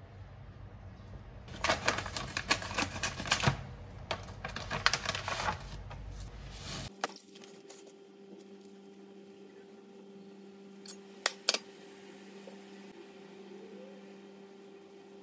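Thin plastic crinkling and crackling for about four seconds as it is handled. It stops, leaving a steady low hum, and near the end come two quick sharp clicks.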